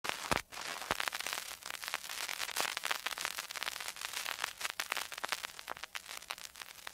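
Faint, irregular crackling static: many small clicks and pops in quick succession.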